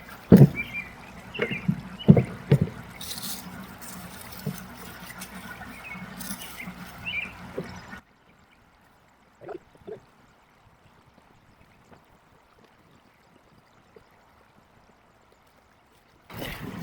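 Trickling water with several sharp knocks and clunks of PVC pipe and fittings being handled. About halfway through, the sound cuts off abruptly to near silence, with a couple of faint taps.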